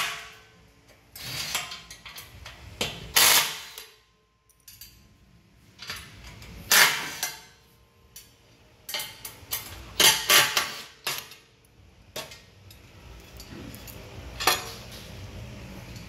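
Steel hardware clinking and clanking against a bare steel chassis frame as bolts, nuts and a bracket plate are handled and fitted: separate sharp metallic knocks with a short ring, several bunched together about ten seconds in and one more near the end.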